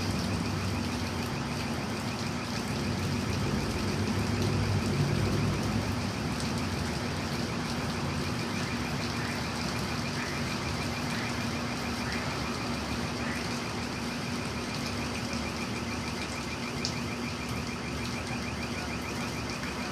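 Steady mechanical drone from a wall-mounted machine, a constant low hum with a fast, even rattle over it.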